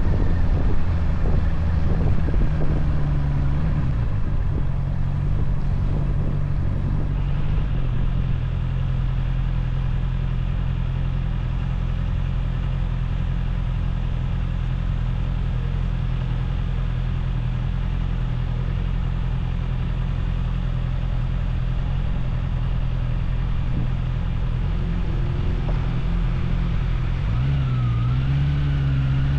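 Motorcycle engine running at a steady cruising speed, with road rumble. Near the end the engine note rises and wavers up and down as the throttle changes.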